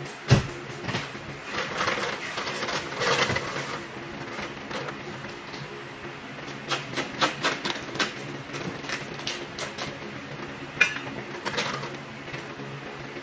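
Irregular metal clanks, taps and rattles of a perforated exhaust-stack heat shield being handled and fitted on a truck's vertical exhaust stack, with a sharp knock just after the start and bunches of clicks further on.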